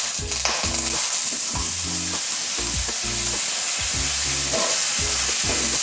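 Soaked, drained jeerakasala rice sizzling in hot ghee with whole spices in a nonstick pan, stirred with a wooden spatula. A steady hiss runs throughout.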